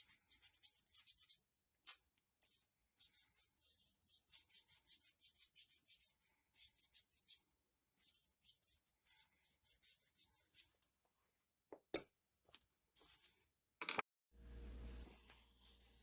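Rapid brush-scrubbing strokes, several a second in runs with short pauses, on soaked carburetor parts. Near the end comes a sharp click, then a knock and a low steady hum.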